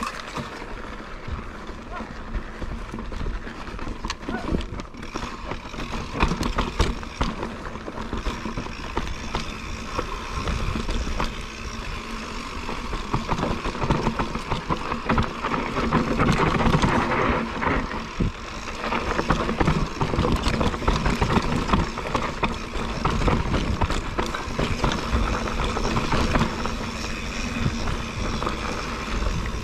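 Mountain bike riding down a dry dirt singletrack: tyres rolling over dirt and the bike rattling with many sharp clicks and knocks over bumps, with wind rumbling on the camera microphone. It gets louder about six seconds in and again through the middle stretch as the bike speeds up.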